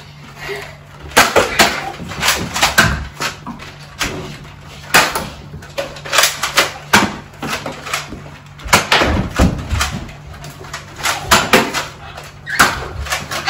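Nerf foam-dart blasters firing, with darts striking walls and doors: an irregular string of sharp clicks and thuds.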